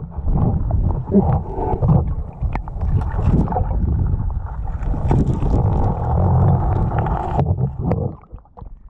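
Muffled underwater noise through a waterproof camera housing as a spearfisher swims: a dense low rushing of water with scattered clicks and knocks. It drops away sharply about eight seconds in, as the camera breaks the surface.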